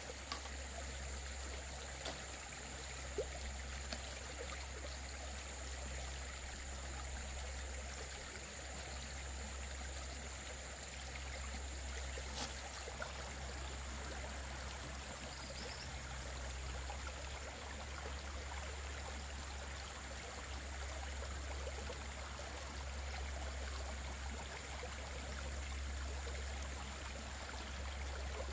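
Flowing stream water: a steady, even rush, with a few faint clicks.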